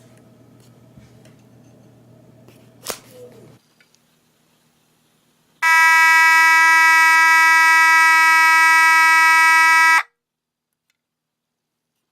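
A fire alarm horn sounding one loud, steady tone for about four seconds, switching on and cutting off abruptly. It comes after a single knock and faint room hum.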